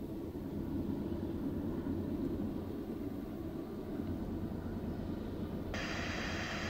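A low, steady distant rumble. Near the end a band of radio static cuts in suddenly, as a scanner's squelch opens ahead of a transmission.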